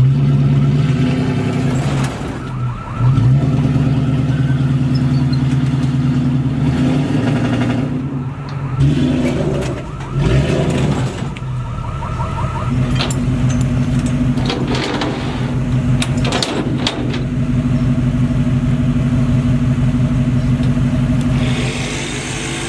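A vehicle engine running with a steady low hum that dips and shifts a few times, with a cluster of sharp clanks and clicks past the middle.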